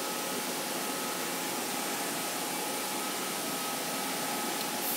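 Steady even hiss with a faint high hum underneath, unchanging throughout, as of a machine or fan running.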